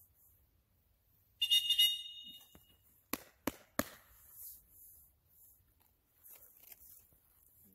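One short, shrill blast on a dog-training whistle about a second and a half in, then three sharp knocks about three seconds in.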